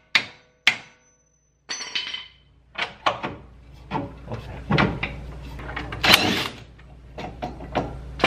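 Two sharp hammer blows on metal, about half a second apart and each ringing briefly, struck at the Civic's front upper control arm to knock it loose. After a short pause comes a run of irregular, duller knocks and clunks as the arm is worked by hand.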